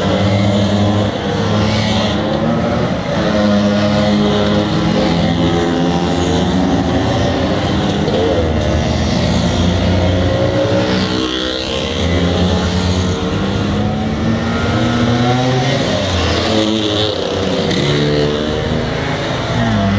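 Motor scooters riding off one after another, several small engines running at once, their notes rising as they accelerate and falling away as each one passes.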